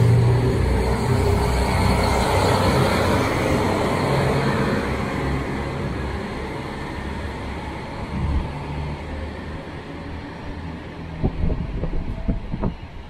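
A JR Hokkaido train running past a platform, a heavy rumble of wheels on rail that fades steadily as its last car goes by. A few short knocks come near the end.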